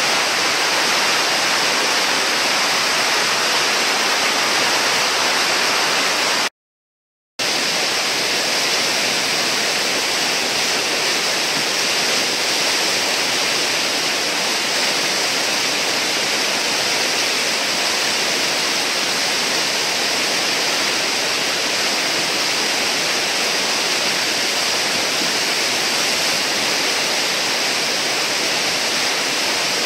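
Steady rush of a whitewater river pouring through a hole and its foaming wave. The sound cuts out completely for under a second about six seconds in, then the rush resumes unchanged.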